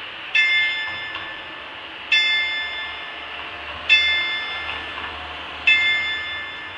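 A single clock bell striking the hour: four identical strokes at the same pitch, evenly spaced about two seconds apart, each ringing on and fading before the next.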